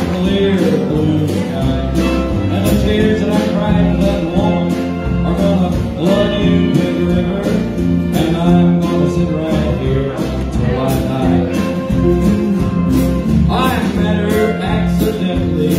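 Live country band playing: strummed acoustic guitar with electric guitar and pedal steel guitar, in a steady beat.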